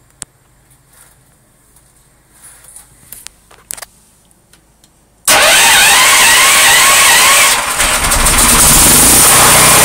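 A few small handling clicks, then about five seconds in the Hyundai HCP9000 generator's engine is cranked by its electric starter for about two seconds, catches, and settles into steady running.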